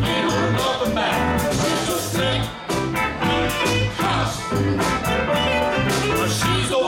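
Live rock band playing with a steady beat: a woman singing lead over electric guitars, bass and a Korg Karma keyboard.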